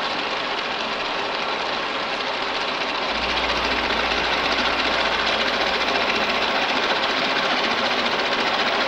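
End mill on a universal milling machine cutting a step into a metal part held on a rotary table: the machine runs steadily under a dense, rapid cutting chatter. The cut gets a little louder about three seconds in.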